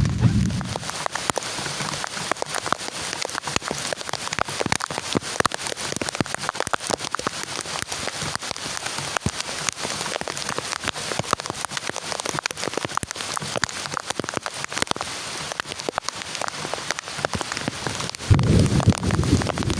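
Heavy rain falling steadily, a dense run of crisp, close drop hits striking a surface. A low rumble swells in about a second and a half before the end.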